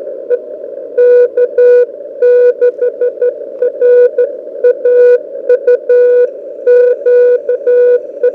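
Morse code (CW) signal received on a Belka-DX shortwave receiver in CW mode and played through a small USB-chargeable wired speaker. A single steady tone is keyed on and off in dots and dashes over a constant bed of receiver hiss, and the keying starts about a second in.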